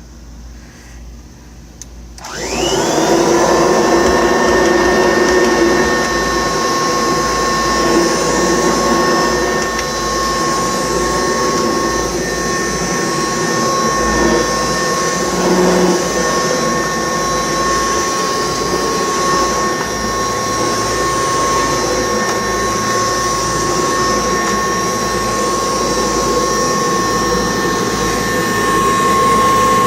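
1979 Kirby Tradition upright vacuum, fitted with a metal fan, switched on about two seconds in. Its motor spins up with a short rising whine, then runs steadily with a high, even whine over a rushing hum.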